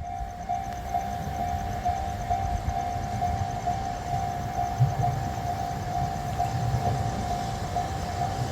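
Japanese level-crossing warning bell ringing steadily, a rapidly repeated electronic ding, over a low rumble.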